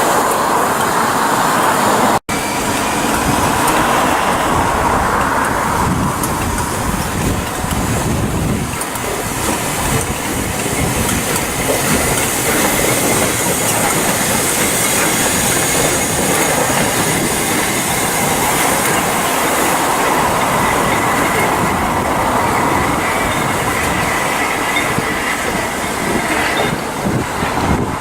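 Steam-hauled train rolling along the track, its wheels clattering over the rail joints with some wheel squeal. The sound drops out for an instant about two seconds in, where one clip cuts to the next.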